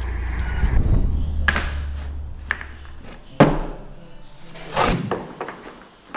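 Intro sound design: a low rumbling drone with sharp metallic clinks, fading out about three seconds in. It is followed by a few sharp knocks and handling sounds as metal bar stock is set down on a wooden bench.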